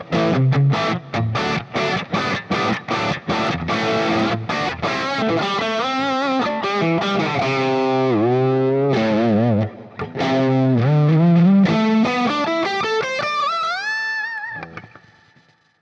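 Distorted electric guitar played through a Fractal Audio FM9 amp-modeler preset. It opens with quick, short choppy notes, then moves to sustained notes with string bends and vibrato. It ends on an upward bend that rings and fades out near the end.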